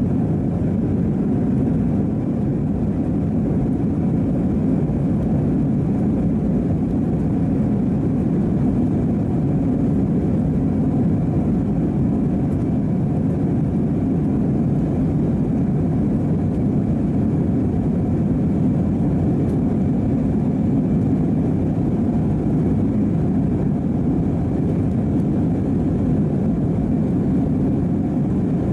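Steady low rumble of a jet airliner's cabin during the climb after takeoff: engine and airflow noise heard from a window seat over the wing, even and unchanging.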